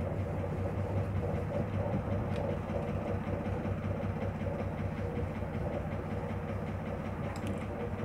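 Wire whisk beating a thin, watery carrot cake batter in a stainless steel bowl: a fast, steady run of clicking and scraping against the metal.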